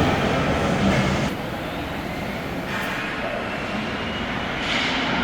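Steady noise of an ice hockey rink during play, with no single sound standing out. It drops a little about a second in and picks up again near the end.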